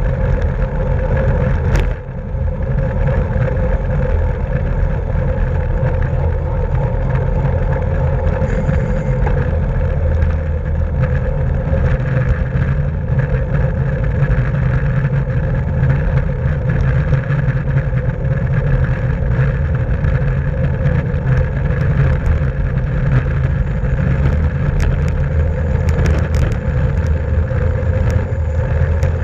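Steady, loud wind rush and road noise on the microphone of a camera moving with a bicycle at race speed, with a few faint ticks near the end.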